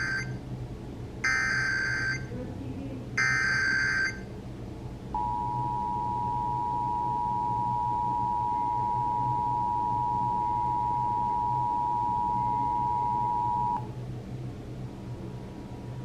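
Emergency Alert System header: three harsh digital data bursts about a second apart, the first already underway. They are followed by the two-tone attention signal (853 and 960 Hz), which holds steady for about eight and a half seconds and then cuts off. Together they mark the start of a required monthly test.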